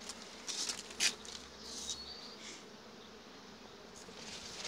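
Honeybees buzzing steadily over an open hive, with a few light clicks of wooden frames being handled about a second in.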